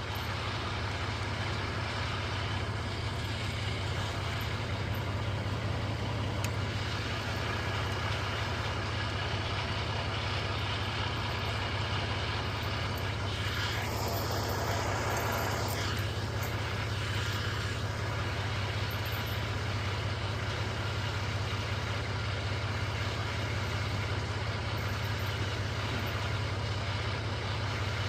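Concrete mixer truck's diesel engine idling steadily with a low hum, and a brief rushing noise about halfway through.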